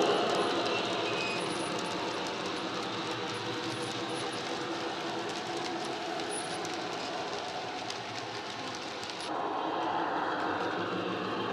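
Model railway steel wagons rolling over the track with light clicking, under the Hornby Class 60's DCC sound-decoder diesel engine sound played through its speaker, which fades as the locomotive moves away. About nine seconds in a sudden change brings the engine sound back, a little louder.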